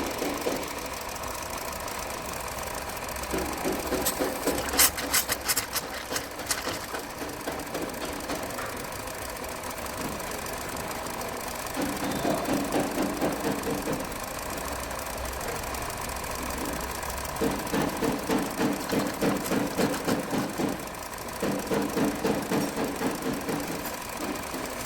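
Hyundai Verna petrol engine running, with a rhythmic clatter that comes and goes in bursts and a quick run of sharp clicks about five seconds in. The engine is overheating and has a 'tak tak' knock that the mechanic thinks could be from a piston or something else.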